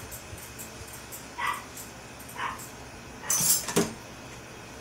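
A dog whining in short high yips, twice, with a brief rattle and a sharp knock about three and a half seconds in.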